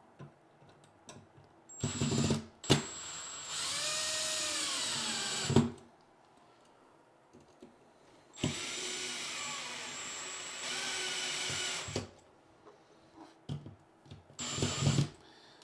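Cordless screwdriver with a Phillips bit driving a GFCI receptacle's mounting screws into the electrical box, in several short runs with pauses between. Its motor whine speeds up and slows down within the runs.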